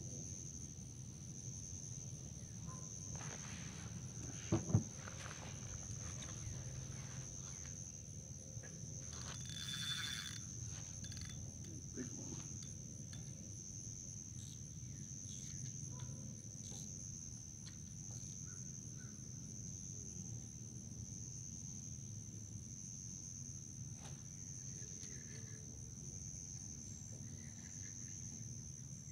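Insects trilling in one steady high-pitched note, with a couple of knocks about four and a half seconds in.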